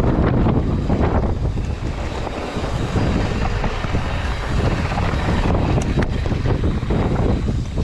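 Wind buffeting the microphone while a mountain bike is ridden fast, with rough tyre and trail noise underneath.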